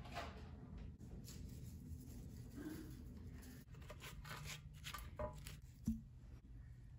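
Faint kitchen food-prep handling: a fork scraping and rubbing inside portobello mushroom caps in a metal baking pan, with small clicks of bottles, and one sharper knock about six seconds in.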